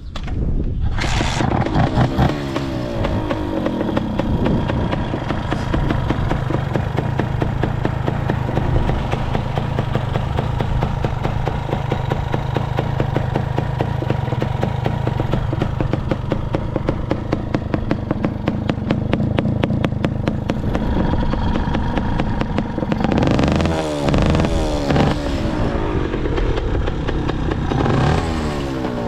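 Kawasaki KSR80's two-stroke single with an RSV expansion chamber starting about a second in and idling with a rapid, even firing beat, then revved a few times near the end. The seller calls the engine quite quiet, with no abnormal noises.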